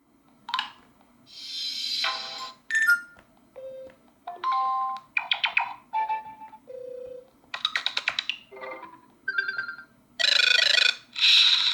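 Cubot KingKong Mini 2 smartphone notification tones played one after another: about a dozen short electronic chimes, beeps and jingles, each a second or less, with brief gaps between them.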